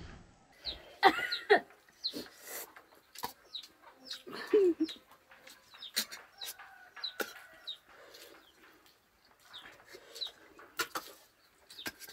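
Chickens clucking now and then, amid many short sharp clicks and brief high chirps.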